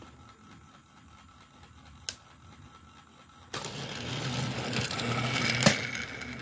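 Battery-powered motorized Thomas toy engine running along plastic track: faint at first, then from about three and a half seconds in the loud whirring of its small electric motor and gears as it passes close by, with a click near the end.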